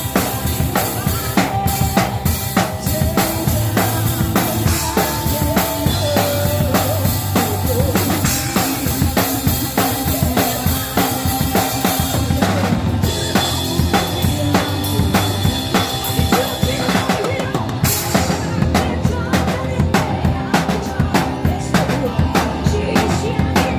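Band music led by a drum kit, with bass drum, snare and rimshots keeping a steady beat under sustained instrumental notes.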